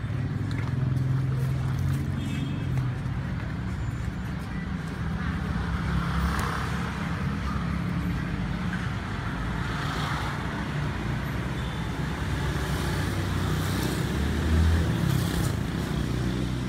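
Street traffic noise: a steady rumble of road vehicles with a louder moment about three-quarters through.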